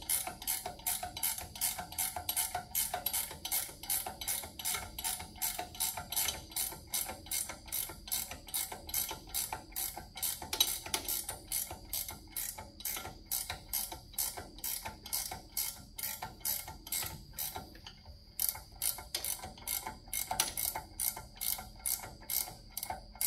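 Ratchet wrench clicking in a steady rhythm, about three clicks a second, as the castle nut on a front-spindle ball joint is run down and tightened. The clicking breaks off briefly about three-quarters of the way through, then resumes.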